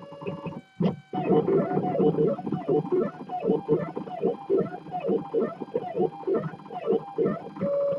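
3D printer stepper motors whining, the pitch sweeping down and back up about twice a second as the print head runs rapid back-and-forth moves. There is a brief gap with a single click about a second in, and the sound settles to a steady hum near the end.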